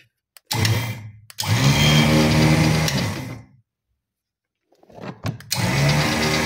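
Rebuilt electric off-road winch run on the bench with its clutch lever locked, so the motor drives the gears and drum. A short blip of the motor, a steady run of about two seconds that cuts off, then it starts again about five seconds in and keeps running.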